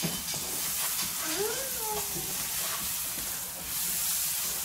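Sliced onions and green chillies sizzling in a hot non-stick frying pan while a wooden spatula stirs them: a steady frying hiss.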